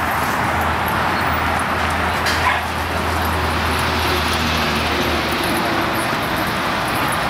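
Steady traffic noise with the low rumble of a vehicle engine, which drops away about five seconds in.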